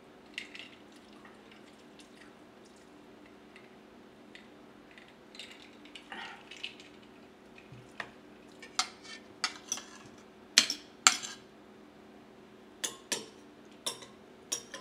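Metal fork clicking and clinking against a ceramic plate: a few scattered clicks at first, then a run of sharp, louder clicks through the second half, over a steady low hum.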